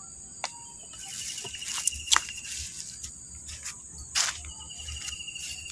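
Insects calling steadily at a high pitch, with a rapid ticking trill heard twice. A few sharp clicks and knocks cut through, the loudest about two and four seconds in.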